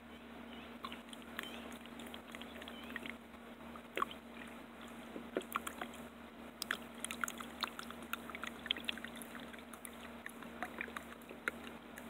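Hydrogen peroxide being poured from its bottle into a beaker of acid, with irregular small splashes and crackles that become busier about four seconds in.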